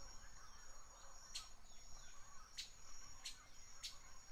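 Faint outdoor ambience: a steady high-pitched whine with short, sharp high chirps about once a second.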